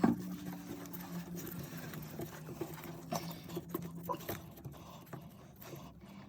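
Small plastic clicks, taps and scraping as toilet fill valve parts are fitted back and tightened by hand, with a sharp click at the start. A faint low hum underneath fades about four seconds in.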